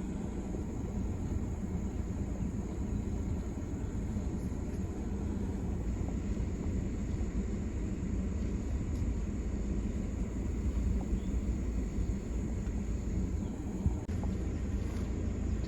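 Vehicle engine idling steadily with a low rumble, with a brief knock near the end.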